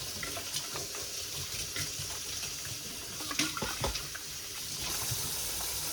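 Kitchen tap running into a sink as plates are washed, with a few clinks and knocks of dishes.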